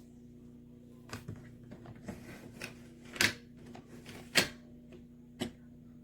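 A few separate clicks and knocks from handling a hard-shell ABS suitcase, the two loudest about three and four and a half seconds in, over a steady low room hum.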